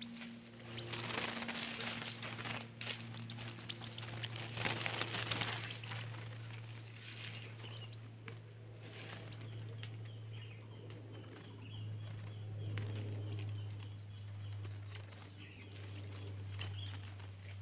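Rustling and crackling handling noise in forest brush, busiest in the first six seconds, with a few short bird chirps and a steady low hum underneath.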